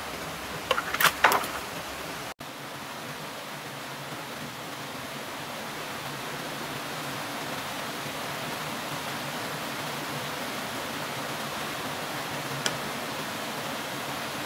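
Small waterfall and stream rushing steadily. About a second in, a quick cluster of sharp knocks from bamboo poles being handled, and one more small click near the end.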